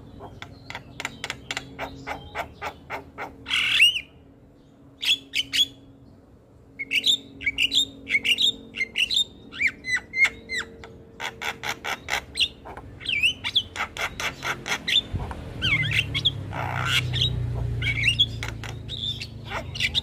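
Javan myna chattering: rapid trains of clicks mixed with short whistled notes and harsh squawks, with a pause of about three seconds after the first few seconds. A low rumble comes in during the last few seconds.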